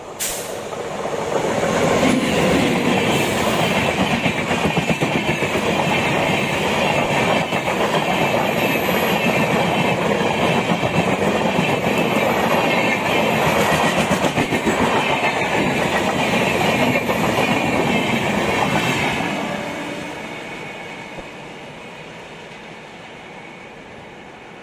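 Passenger train hauled by a WAP-7 electric locomotive passing at speed without stopping. It comes in with a sudden loud rush, then the coaches run past with a steady rattling roar of wheels on rail and a clickety-clack over the joints for about 18 seconds. The sound fades after the last coach goes by.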